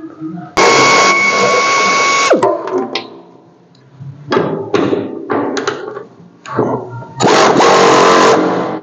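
Handheld power tool run in bursts: a whirring run of nearly two seconds whose pitch winds down as it stops, a few short blips of the trigger, then another long run near the end.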